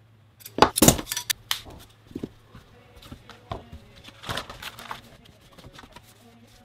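Metal clinks and knocks as a steel vernier caliper and a metal faceplate are handled and set down on a hard table, a sharp cluster near the start followed by lighter taps, then softer handling of sheets of decal paper. A faint steady low hum runs underneath.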